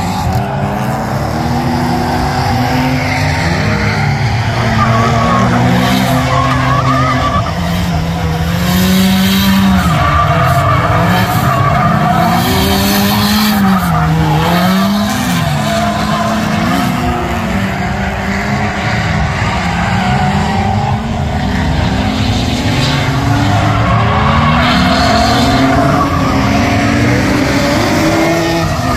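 Nissan S13 drift car's engine revving hard, its pitch swinging up and down as the throttle is worked, with tyres screeching as the car slides sideways through the corners.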